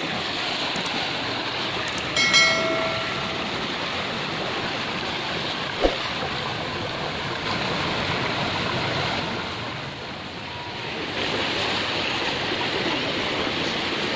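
River water rushing over rocks, a steady running noise. About two seconds in a short, steady pitched tone sounds for about a second, and a single sharp knock comes near six seconds.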